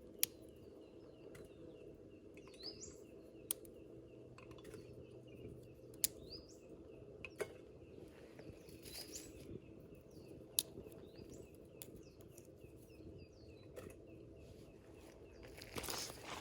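Twig fire burning in a Kelly Kettle's base, a steady low rumble as the water comes toward the boil, with sharp crackles every few seconds. Birds chirp in the background, and a louder rustling starts near the end.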